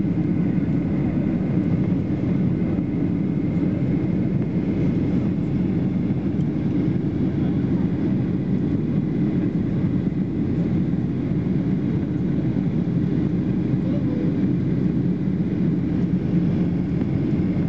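Steady cabin noise of a jet airliner in flight, the turbofan engines and rushing air heard from a window seat during the descent, deep and even, with a faint high steady tone over it.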